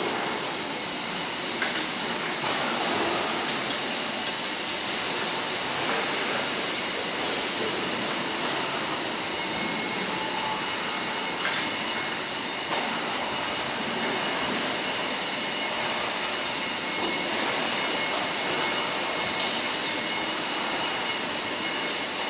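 Steady mechanical din of an automatic bagging and palletizing line running: belt and roller conveyors and machinery, with a few faint steady whines, scattered clicks and a couple of brief high falling squeaks.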